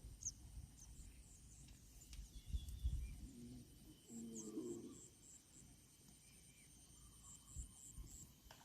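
Faint outdoor ambience: a high, thin chirping repeats about four times a second in two short runs, with low rumbles and knocks on the microphone and a faint low call in the middle.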